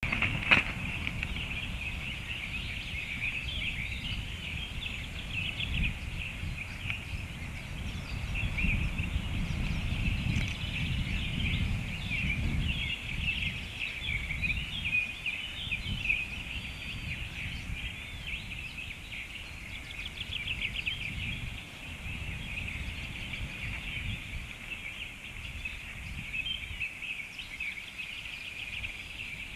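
A pet bird making a continuous rapid, rippling chatter during wing exercises, with uneven low rumbling underneath that is strongest in the middle stretch.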